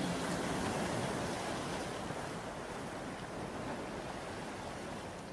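A steady wash of noise like surf, with no tune or beat, slowly fading out as the song's audio ends.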